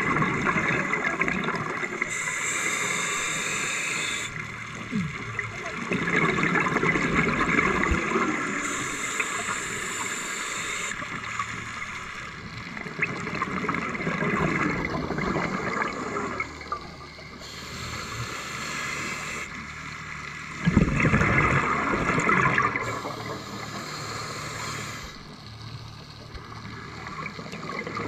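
Scuba regulator breathing underwater: about four slow breaths, each a hissing inhale through the regulator followed by a bubbling, gurgling exhale, the loudest burst of bubbles about three quarters of the way through.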